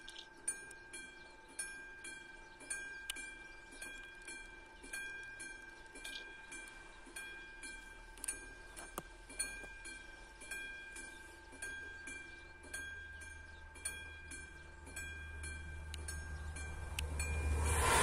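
Classic mechanical bell of a Czech level-crossing warning system ringing with evenly repeated strokes, each one ringing on. From about twelve seconds in, the low rumble of an approaching train grows, becoming loud near the end as the train reaches the crossing.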